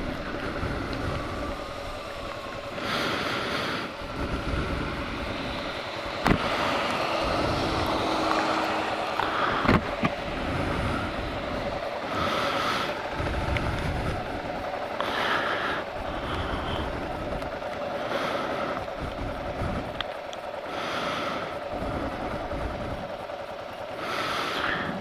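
2009 Kawasaki KLR 650 motorcycle's single-cylinder engine running, heard from a GoPro Hero 2 on the bike, with a steady hum. A few short bursts of hiss come and go over it, and there are a couple of sharp clicks.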